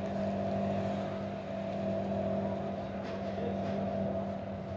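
Steady hum and hiss of an open telephone line held on hold, heard through an old recording of a long-distance call: two low steady tones with a haze of line noise.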